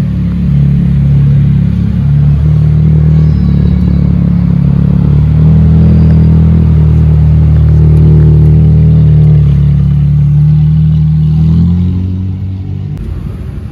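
Car engine and exhaust running close by with a deep, steady low note that holds its pitch, fading away about twelve seconds in.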